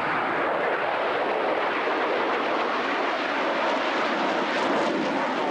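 Jet engine noise from a pair of military jets flying a close formation display overhead: a steady, even rush.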